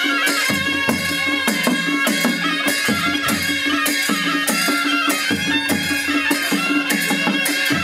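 Nepali panche baja band playing: sanai (shehnai) pipes carry a reedy melody over a steady held note, with drum strokes about twice a second.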